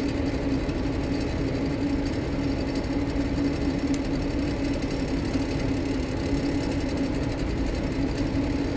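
Steady machine hum, even in level throughout, with a low drone and no distinct clicks or strikes.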